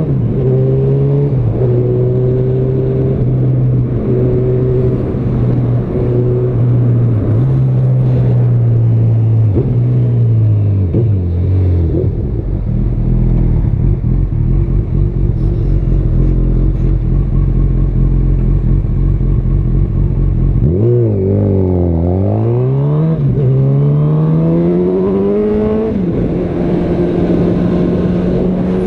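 Honda CB1000R's inline-four engine with a Yoshimura R-77 exhaust, heard from on the bike while riding. It holds a steady note, drops to a low rumble about twelve seconds in, then dips and rises in pitch as it is revved again, climbs and settles back to a steady cruise.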